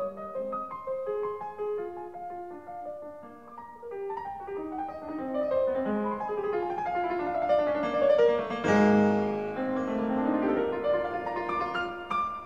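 Background piano music: a melody of separate single notes that grows into fuller, louder chords about nine seconds in.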